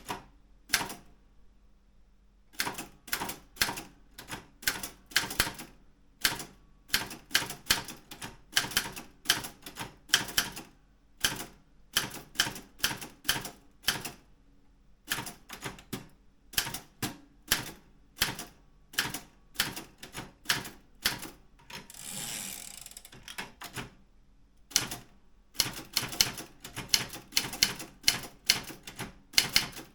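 Daro Optima M16 manual typewriter being typed on: irregular runs of sharp key strikes, several a second, broken by short pauses. A longer sliding noise comes a little before two-thirds of the way through.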